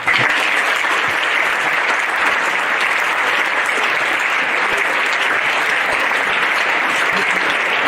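Large audience applauding steadily, a dense sustained clapping that starts suddenly right after a congratulation.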